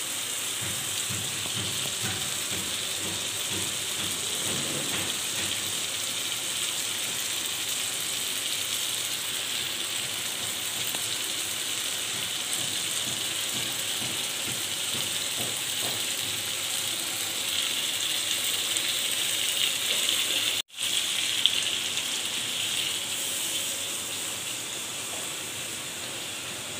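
Tomato and green-chilli masala with fish steaks sizzling in a frying pan as it cooks down with a little water: a steady, even hiss, broken for an instant about 20 seconds in.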